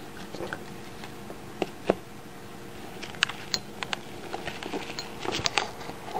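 A cat playing with a feather-and-tinsel cat teaser on a wooden floor: irregular sharp taps and scratches of claws and the plastic wand against the boards, with light rustling of feathers and tinsel. The loudest taps come about two seconds in and in a quick cluster past the five-second mark.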